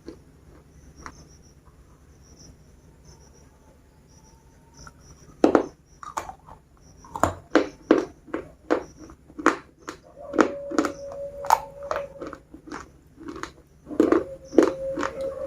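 Biscuits being bitten and chewed close to the microphone: a few seconds of faint clicks, then a loud crunchy bite about five seconds in, followed by crisp chewing crunches at roughly two a second.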